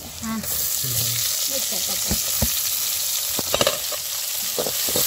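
Vegetables frying in hot oil in a wok: a steady loud sizzle that jumps up about half a second in as tomato slices go into the onions and chilli. A steel spoon scrapes and knocks against the pan several times as it stirs.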